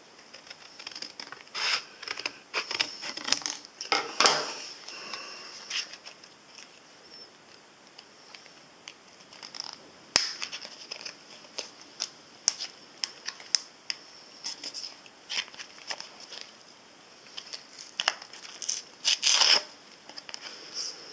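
Scissors cutting through a Duracell coin-cell blister card, and the plastic blister crackling and the card rustling as the button cell is pushed and worked free. Irregular clicks and rustles, with louder stretches of cutting and crinkling a couple of seconds in and again near the end, and one sharp click midway.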